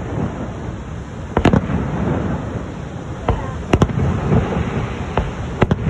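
Fireworks bursting overhead: sharp bangs about every second or so, some in quick pairs, over a steady low rumble.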